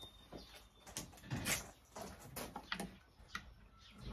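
Faint, scattered clicks and light knocks of a nail and a hammer being handled and set in place on a wooden workbench.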